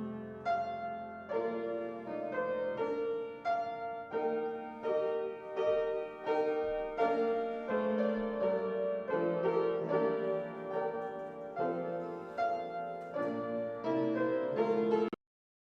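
Solo piano playing a melody over chords, a new note or chord struck about every half second; the sound cuts off abruptly near the end.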